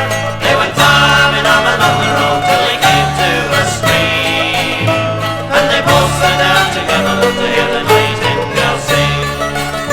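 Instrumental break in a bluegrass band recording: banjo picking over guitar, with a bass note on about every beat.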